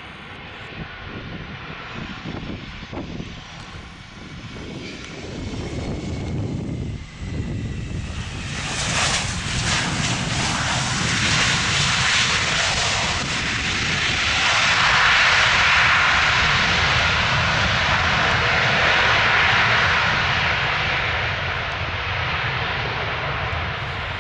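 Airliner's engines passing close, the noise building over about eight seconds into a loud, steady roar that eases slightly near the end.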